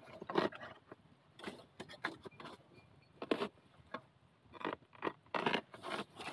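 Rustling and crunching of dry leaves and bamboo litter in uneven bursts, from someone scraping and working around a wild bamboo shoot.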